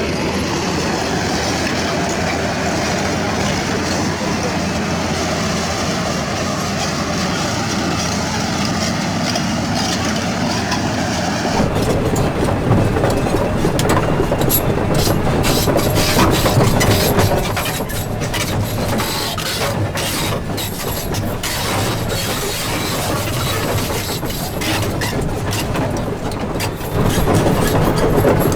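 Doosan 500LCV excavator at work: its diesel engine and hydraulics run steadily, and from about twelve seconds in a rapid clatter of knocks and scrapes joins in.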